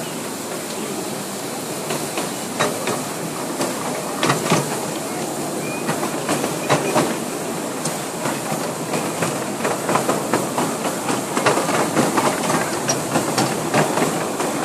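One-foot-gauge miniature train rolling along its track, with a steady hiss of steam from the small steam locomotive. The wheels click and clatter over the rail joints, more often and louder in the second half.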